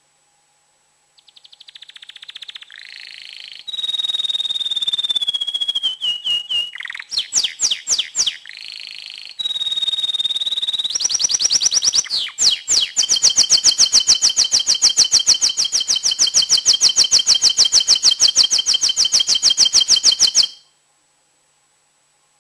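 A male domestic canary in excited breeding song: a long song of trills and rolls, some notes held on a steady pitch and one gliding down. It ends in a long, very fast trill that cuts off suddenly near the end.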